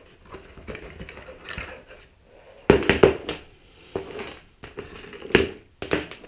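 Handling of small hard objects, the soldering iron's leads and plug parts: irregular clicks, knocks and rattles with some rustling, the loudest knocks about three seconds in and again near five and a half seconds.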